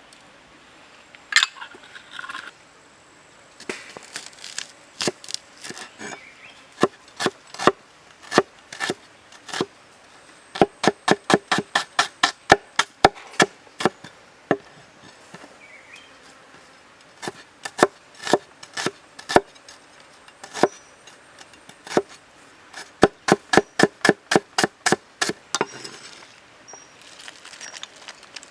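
A knife chopping on a wooden cutting board, in runs of sharp strokes up to about four a second, broken by short pauses.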